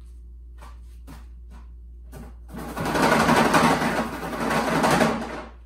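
Paint brush being beaten against the beater rack of a brush-washing bucket to knock the cleaning fluid out of the bristles and dry them: a few separate taps, then about three seconds of loud, rapid rattling whacks that stop suddenly.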